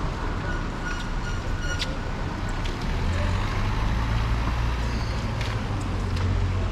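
Street traffic: a motor vehicle's engine rumbling close by, growing louder about three seconds in, over a steady traffic hum.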